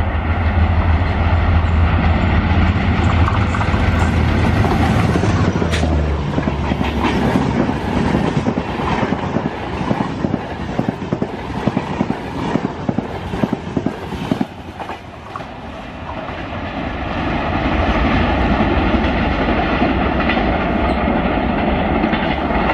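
A WDP3A diesel locomotive passes at speed with a heavy low engine drone. Behind it the double-decker coaches rush by, their wheels beating a fast clickety-clack over the rail joints for about ten seconds. The sound then settles into a steadier rumble as the rest of the train runs on.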